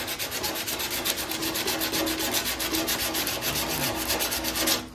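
Coarse 60-grit sandpaper rubbed by hand in quick, rapid back-and-forth strokes along the edge of a steel car door, grinding off body filler and glue until bare metal shows through. The rasping stops abruptly near the end.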